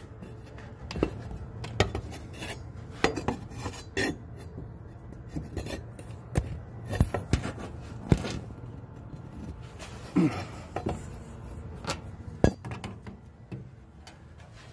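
Irregular light clicks and clinks, about a dozen scattered through, over a low steady hum: handling noise as the camera is moved about close against the car's engine-bay sheet metal and wiring.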